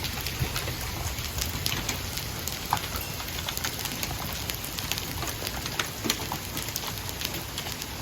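Heavy rain mixed with hail: a steady downpour with irregular sharp ticks of hailstones striking hard surfaces.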